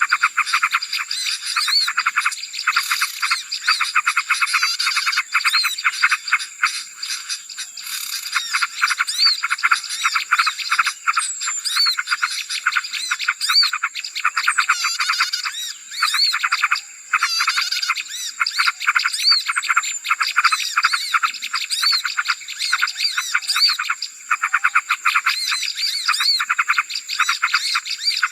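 Dense, noisy chorus of many small songbirds chattering and chirping rapidly, a bird-luring call track meant to draw in small birds, over a steady high tone.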